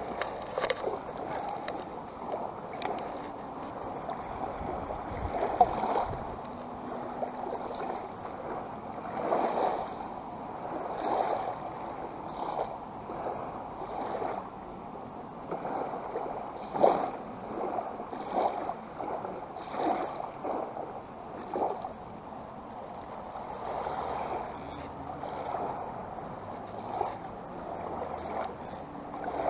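Small waves lapping and splashing at the sandy shoreline, coming in irregular swells every second or two.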